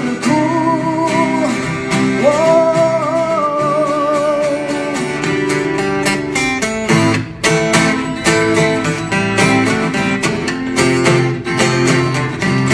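Two acoustic guitars strummed together in a live acoustic performance. For the first few seconds a voice holds sung notes with vibrato over them, then the guitars carry on alone.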